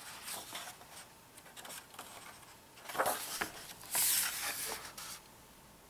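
A page of a hardcover picture book being turned: soft paper rustling, a thump about three seconds in, then a hand brushing across the paper for about a second to flatten the new page.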